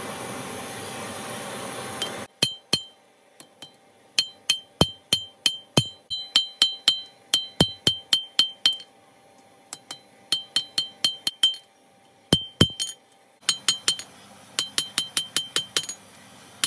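Hand hammer forging a red-hot keris blade on a steel anvil: runs of quick, bright ringing strikes, about three or four a second, with short pauses between the runs. For the first two seconds, before the hammering starts, there is a steady rushing noise from the forge fire.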